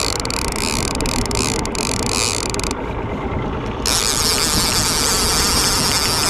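A trolling reel being cranked hard against a hooked king salmon, its gears whirring with a ratcheting click. Nearly three seconds in the sound turns dull for about a second, then comes back louder as a steady rush.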